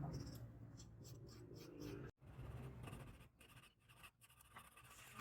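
Faint, irregular scraping and rubbing strokes of hand work on a workpiece, broken off by an abrupt cut about two seconds in, then carrying on.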